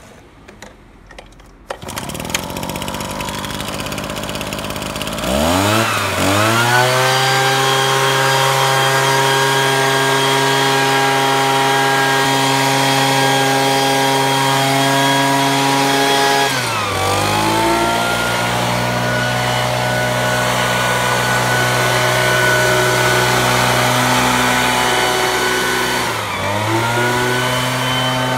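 Shindaiwa EB240 handheld two-stroke engine blower starting up and idling, then throttled up with a rising pitch to a steady, loud high-speed run. Later the revs drop and pick back up twice.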